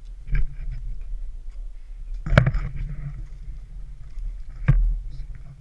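Wind buffeting an action camera's microphone as a steady low rumble, with three sharp knocks or bumps about two seconds apart, the loudest a little before the middle.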